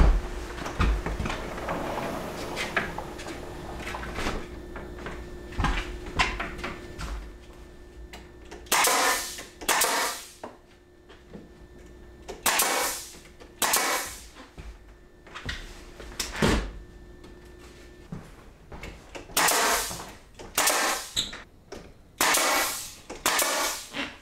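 Pneumatic brad nailer firing nails into wooden door trim: about nine sharp shots, mostly in pairs about a second apart, each with a short puff of air. Before the shots, boards being handled with light knocks and taps.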